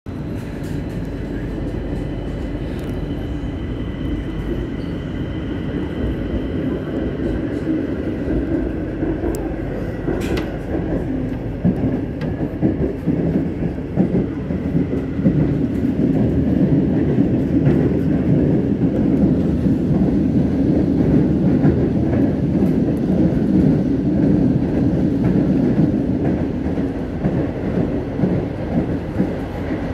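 Madrid Metro Line 9 train running, heard from inside the car as it pulls out and gathers speed. A faint steady high whine fades out about twelve seconds in, while the running rumble grows louder and rougher and then holds steady.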